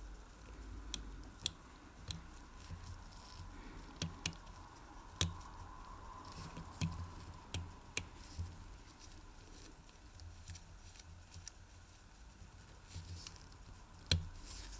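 Irregular small clicks and taps of watchmaker's tools and parts being handled while the Seiko 5M42A Kinetic movement is reassembled into its case, over a faint steady hum.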